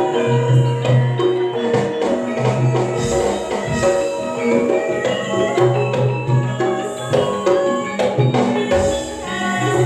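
Campursari music playing: an instrumental passage from a Javanese band that mixes gamelan-style percussion with keyboard, with a steady beat, short struck notes and long held bass notes.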